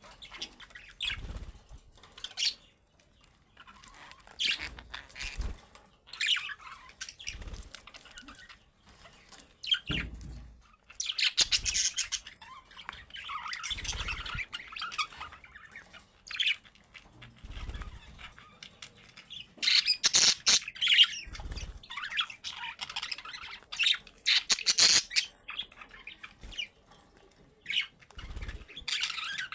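Pet budgerigars chattering, chirping and squawking in irregular bursts, with short low thuds every few seconds.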